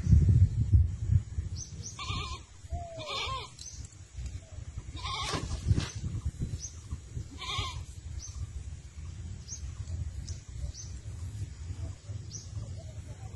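Goats bleating about four times in the first eight seconds, over a low rumble and faint high chirps repeating about once a second.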